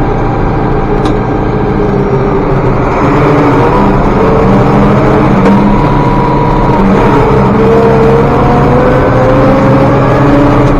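International 1086 tractor's six-cylinder diesel engine running under load while hauling a wagon of corn on the road, heard from inside the cab. Its pitch climbs slowly over the second half as it picks up speed.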